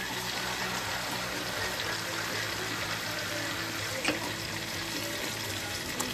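Kitchen faucet running steadily, filling a bowl with water.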